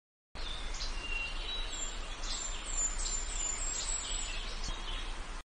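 Several small birds chirping and twittering in high, quick calls over a steady outdoor background hiss and low hum; the ambience starts and cuts off abruptly.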